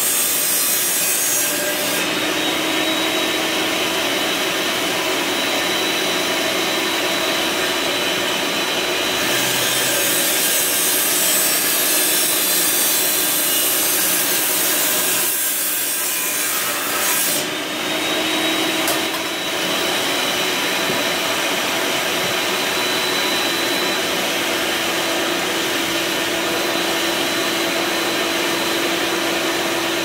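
A 10-inch diamond-blade wet saw running, its blade grinding steadily through a glass wine bottle, with a short lull a little past halfway.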